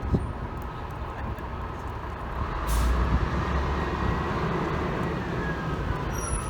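Fire truck's diesel engine rumbling close by in street traffic, growing louder about three seconds in, with a short air-brake hiss at that point. A faint tone falls in pitch near the end.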